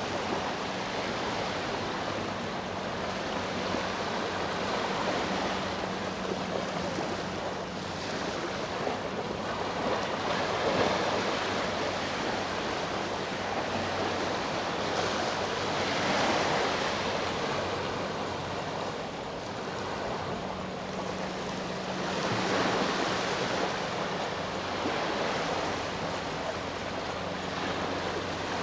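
Sea waves breaking and washing onto the shore, the surf swelling about every five or six seconds, over a faint steady low hum.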